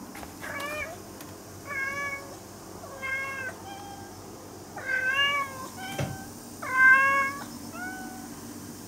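Two cats, one of them a brown tabby, trading high meows: about eight short calls in a row, the loudest near the end. A soft knock comes just after six seconds.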